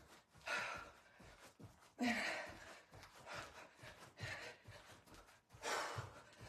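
A woman breathing hard and out of breath from exertion during jumping cross jacks: five sharp, hissy exhales, one every second or so, the loudest about two seconds in.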